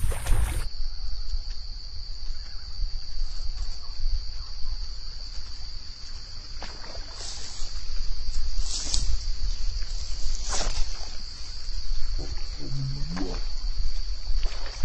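A steady, high chirring of field insects, lowered in pitch because the audio is slowed to about half speed, over a low rumble of wind on the microphone. A few brief sharp sounds stand out in the middle.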